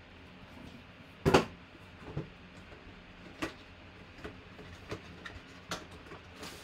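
Cardboard mini-helmet box and its plastic wrapping being handled and opened by hand. A single sharp knock comes about a second in, followed by a scattered series of smaller clicks and crinkles as the box flaps are pulled open.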